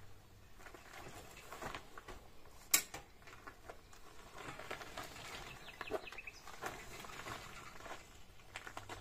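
Faint handling noises, light knocks and rustles, with one sharp click about three seconds in and a brief faint chirp a little past the middle. No engine is running.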